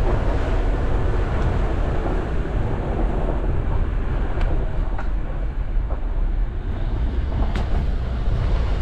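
Off-road vehicle driving slowly over a rough, icy trail: a steady low rumble of engine and wind buffeting the microphone, with a few short sharp clicks and knocks from about four seconds in.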